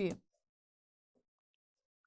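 Near silence: room tone after a spoken word ends.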